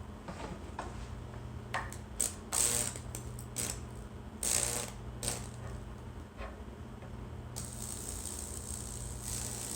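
Lichtenberg wood-burning machine arcing over a wet board soaked in baking soda solution: a steady low transformer hum with irregular sharp electrical snaps, turning to a steady high hiss about seven and a half seconds in. The discharge is finicky and struggling to take hold.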